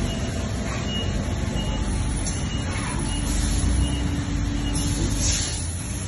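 Amada HD8025NT CNC press brake running its calibration cycle: a steady low machine hum, with a motor whine for about two seconds in the middle as the back gauge travels. Short faint high beeps recur throughout, and a few brief hissy swishes come with the movements.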